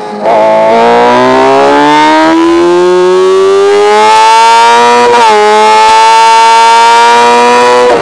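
Motorcycle engine heard from an onboard camera, opening up hard out of a corner: the engine note climbs steadily, drops briefly with an upshift about five seconds in, then climbs again.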